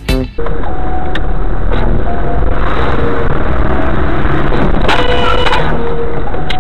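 Loud, steady road and engine noise of a moving car recorded by a dash camera, cutting in abruptly a moment in. A short pitched tone sounds about five seconds in.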